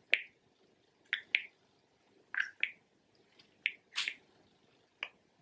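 Quiet, sharp taps and clicks of a makeup stick being dotted onto the face and patted in with a fingertip, about nine of them at irregular intervals, several in quick pairs.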